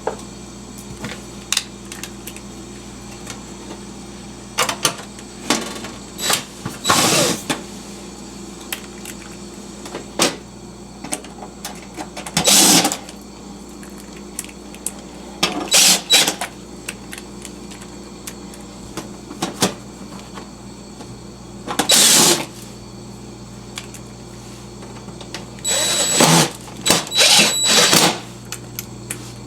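Cordless driver running in short bursts, several times, driving the screws that hold the fridge's back panel on. Under it is a steady low hum from the running refrigerator.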